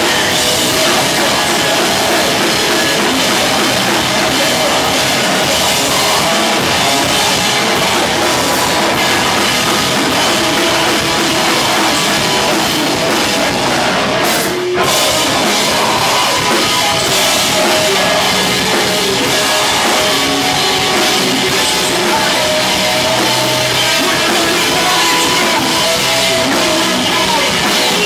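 Live rock band playing loud: drum kit, electric guitars and bass through amplifiers, with a momentary break about halfway through.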